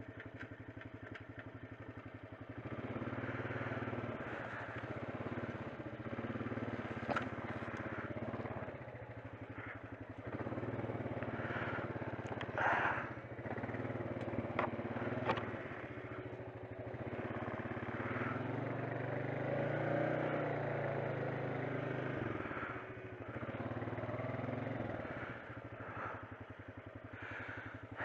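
Honda ATV engine idling and rising under light throttle in several surges of a few seconds each as the quad is manoeuvred and turned around, with a few sharp clicks along the way.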